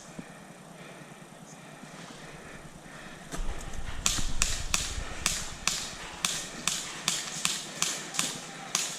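Airsoft gun firing a string of single semi-automatic shots, sharp cracks about two to three a second, starting about four seconds in, after a brief low rumble.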